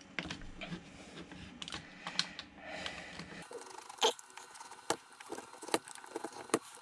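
Utility knife blade cutting and prying at the glued seam of a plastic battery pack case: irregular small clicks and scrapes, with a sharper click about four seconds in.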